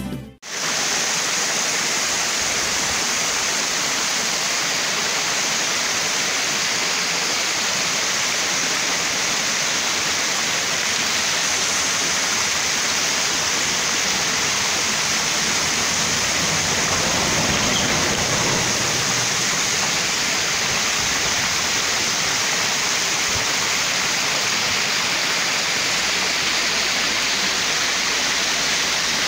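Steady rushing noise, like running water, with no distinct events and brightest in the treble.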